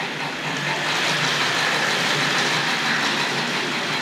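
Tri-ang Hornby TC Pacific 00-scale model locomotive running along the track with its coaches: a steady whirring, hissing mechanical noise from its motor and wheels on the rails.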